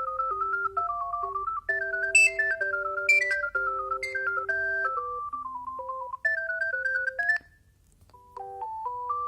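Alcatel One Touch 320 mobile phone playing a polyphonic ringtone: a fast electronic melody over a lower line of accompanying notes. It stops about seven seconds in, and after a short pause a different tune begins.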